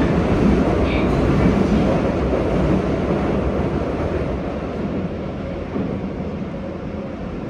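Running noise inside a Tokyo Metro 9000 series subway car under way: a steady rumble of wheels on rail and the car's motion, slowly getting quieter.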